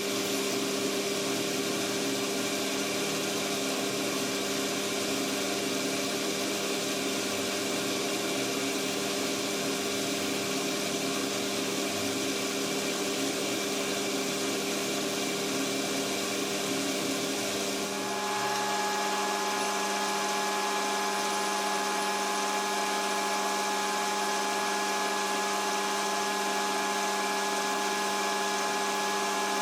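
Lathe running steadily while machining a casting held in its chuck, a continuous machine hum over cutting noise. About 18 seconds in, a higher whine joins and holds.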